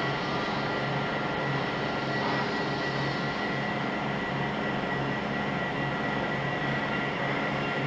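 NordicTrack treadmill running with nobody stepping on the belt: a steady motor hum with a thin high whine over the belt's noise, without footfalls.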